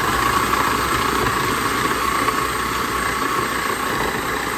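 Sunbeam electric food processor running steadily, its blade grinding raw wild hog meat into ground meat.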